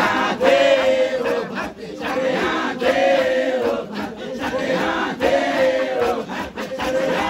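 A group of men chanting together, repeating a short sung phrase about every two and a half seconds over crowd voices.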